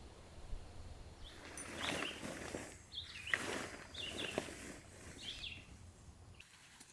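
A bird chirping four times, about a second apart, over a rising and falling hiss of outdoor noise.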